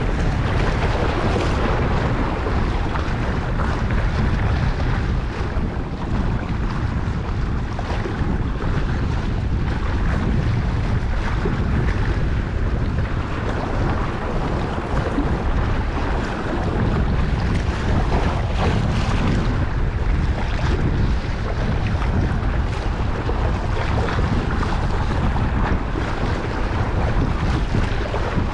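Steady wind buffeting the microphone, with choppy sea water lapping and splashing against the breakwater.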